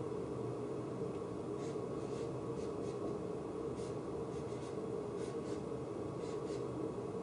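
Dry-erase marker squeaking and scratching on a whiteboard in a string of short drawing strokes, over a steady room hum.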